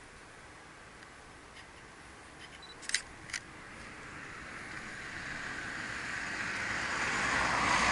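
A DSLR shutter fires twice, two sharp clicks about half a second apart. Then a rush of road noise from an approaching vehicle grows steadily louder toward the end.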